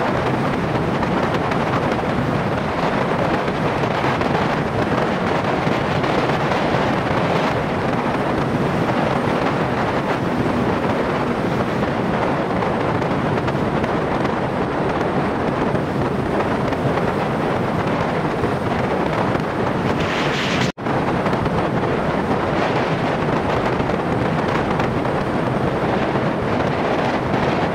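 Steady rush of wind on the microphone of a moving motorcycle at road speed, mixed with road noise. It cuts out for an instant about two-thirds of the way through.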